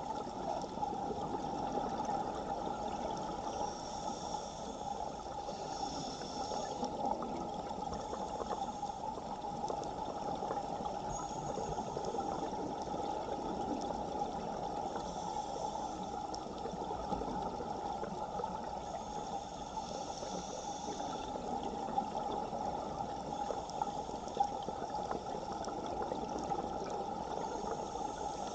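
Steady underwater rushing of water from a strong current, heard from inside the water, with fainter hissing swells every few seconds.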